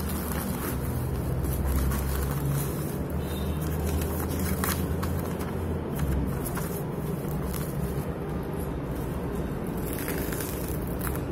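Plastic courier bag and bubble wrap crinkling and rustling in the hands in scattered short bursts, with paper being handled, over a steady low rumble.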